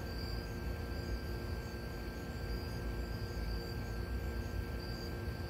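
Night insects calling in repeated short high pulses over a low steady rumble.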